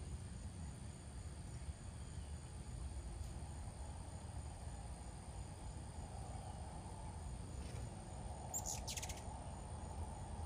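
Garden ambience: a steady high insect drone over a low rumble, with a short bird chirp about three-quarters of the way through.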